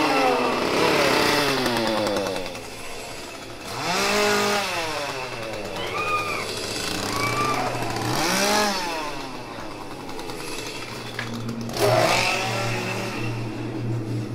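A two-stroke gasoline chainsaw being revved up and down several times, its pitch rising and falling with each rev. From about ten seconds in it settles to a steady low idle, with a sudden loud burst about twelve seconds in.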